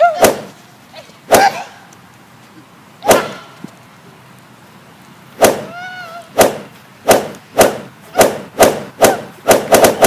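A series of sharp slaps and thumps from blows in a scuffle between two people, a few seconds apart at first and then coming in quick succession near the end. One or two short cries come with them.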